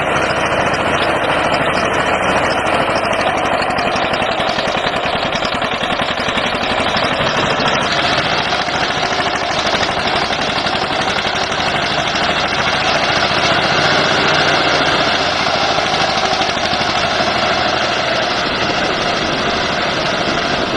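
Diesel engines running steadily and without a break: an old farm tractor and a backhoe loader working close together.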